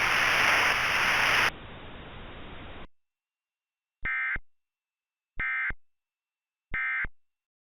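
Broadcast static hiss that drops sharply about a second and a half in and cuts off just before three seconds, followed by three short, identical buzzy data bursts of an Emergency Alert System SAME end-of-message code, signalling that the alert message is over.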